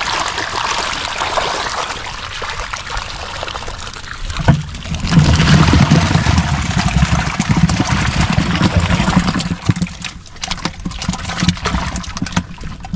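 Water trickling and splashing, as from a fish trap being handled and lifted out of flooded paddy-field water, louder and heavier from about five seconds in.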